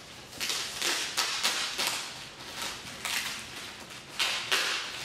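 Plastic wrapping and cardboard flaps being handled while a shipping box is opened, rustling and crinkling in a run of irregular swishes.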